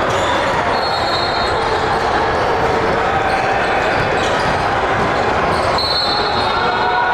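Live basketball game sound in a gym: a ball dribbling on the hardwood over a steady crowd din, with high sneaker squeaks about a second in and again near the end.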